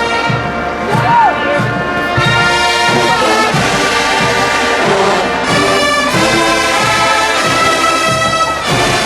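HBCU marching band playing: the brass section holds loud full chords that change every second or so, over steady drum hits from the drumline.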